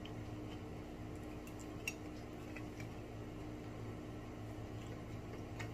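A few light clicks and clinks of tableware during a meal, the sharpest about two seconds in, over a steady low hum.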